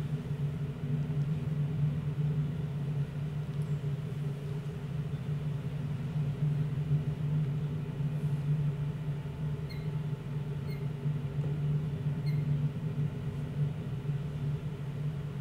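A steady low droning hum that swells and fades unevenly, with a few faint high ticks about two-thirds of the way through.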